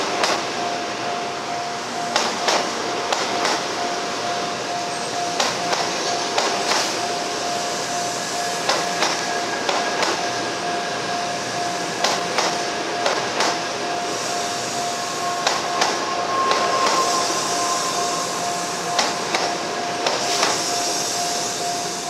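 N700-series shinkansen cars rolling slowly over a level crossing, the wheels clacking in close pairs every couple of seconds as each bogie crosses the rails. The level-crossing alarm keeps up a steady tone underneath.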